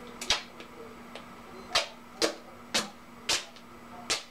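Duct tape being pulled off the roll in short jerks: six quick rips, most about half a second apart after the first.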